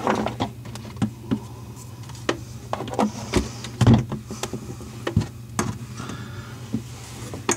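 Irregular clicks and knocks of a faucet's metal mounting bracket and nut being handled and threaded onto the mounting bolt under a bathroom sink, over a steady low hum.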